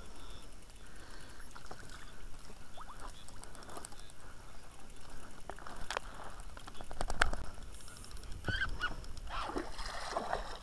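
Water splashing and sharp knocks as a landing net is worked against a thrashing pike at the side of an inflatable boat, loudest about two-thirds of the way through when the net is lifted dripping from the water. A few short pitched cries sound near the end.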